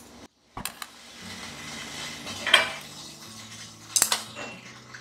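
Metal cookware clattering at a stove-top steamer: a loud scraping rush about halfway through and a sharp metal clink about a second and a half later.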